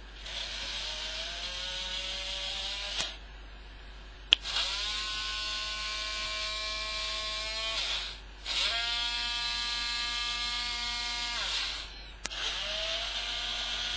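OWI-535 robot arm's small DC gearmotors whining in four separate runs of about three seconds each as the arm moves one step at a time, with short pauses between moves. Sharp clicks mark some of the breaks.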